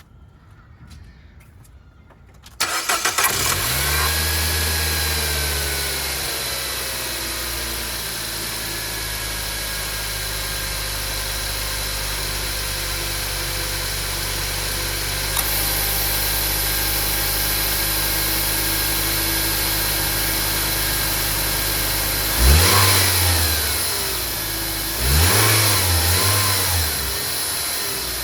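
Nissan HR15DE 1.5-litre four-cylinder engine cranking and catching about two and a half seconds in, its fast idle dropping over a few seconds into a steady idle. Near the end the engine is revved briefly twice.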